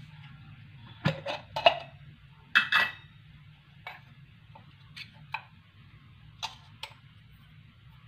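Sharp clicks and a few short metallic clinks from handling steel kitchenware, a spice container and spoon, bunched about one to three seconds in and then sparser and softer, over a low steady hum.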